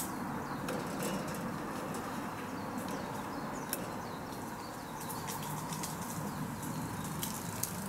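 Steady outdoor ambience: an even background noise with a few faint high clicks.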